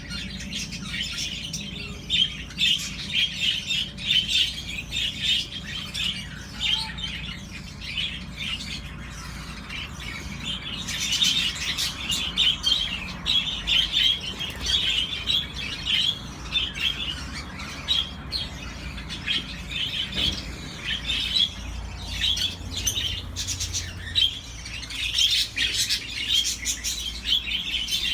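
Lovebirds and budgerigars chirping continuously, many short high chirps overlapping without a break.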